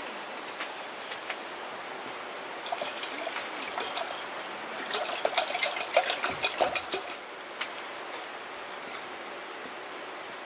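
Water poured from a plastic bottle into a metal camp cooking pot, splashing and gurgling, loudest a little past the middle. A few light clicks come before it.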